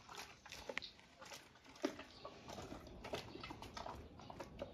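A large dog slowly chewing a whole raw duck, faint irregular wet clicks and smacks of its jaws on the meat and bones.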